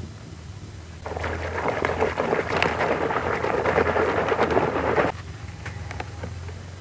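Dried black sand heart shape crumbling in foamy water: a dense fizzing crackle of many tiny clicks that starts about a second in, lasts about four seconds, and stops abruptly.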